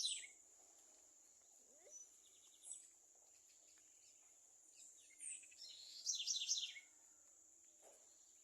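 Small birds singing intermittently: a quick trill about three seconds in and a louder run of descending notes around six seconds, over a steady high insect whine.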